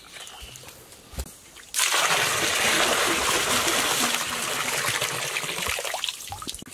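Water poured out of bamboo tubes splashing into a part-filled pool. It starts suddenly about two seconds in, after a quieter stretch with a single knock, runs loud and steady, and fades near the end.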